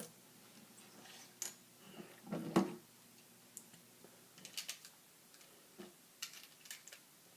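Plastic LEGO pieces being handled and pressed together: scattered small clicks and taps, some in quick little clusters, with the loudest knock about two and a half seconds in.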